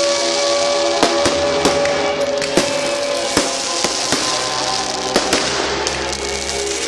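Fireworks going off in a display: many sharp bangs and cracks at irregular intervals, over music with long held notes.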